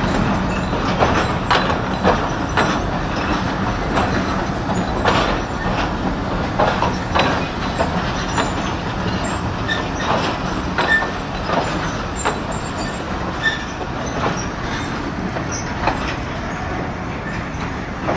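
Passenger train coaches rolling past, wheels clacking irregularly over rail joints with a few brief wheel squeals over a steady rumble that fades slightly toward the end.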